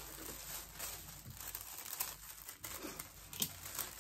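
Crinkling and rustling of cut sewing pieces, paper pattern pieces and fabric, as they are handled and sorted on the table, with a few light sharp taps, the strongest near the end.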